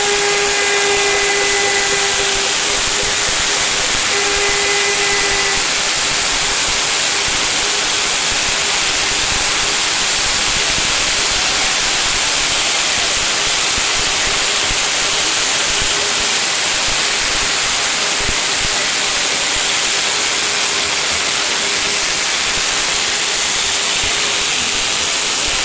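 Fireworks giving a loud, steady hiss with no separate bangs. Two held horn-like tones sound in the first five seconds or so.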